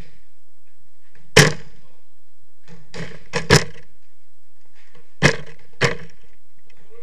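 Football being kicked and smacking off the walls of an enclosed jorkyball court: about six sharp thumps in three groups, with a short echo after each.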